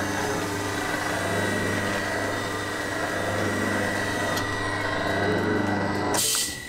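Freund SPIR-A-FLOW fluid-bed granulator dryer running, a steady machine noise with a constant high whine and low hum. Near the end comes a brief hiss, and the machine noise then cuts away as it is switched off.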